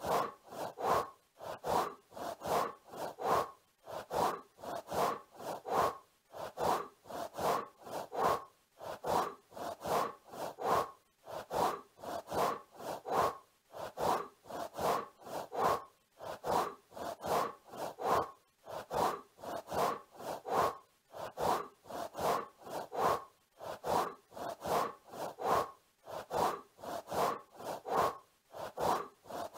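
Looped wing-flapping sound effect: a soft, scratchy flutter repeating in quick, even pulses a few times a second.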